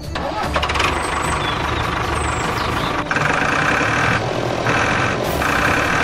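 Tractor engine sound running steadily. About three seconds in, a higher layer joins that comes and goes roughly every half second.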